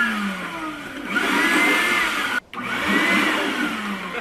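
Wet/dry shop vacuum motor running with a hissing rush of air, its whine rising and falling in pitch. The sound cuts out for an instant about halfway through.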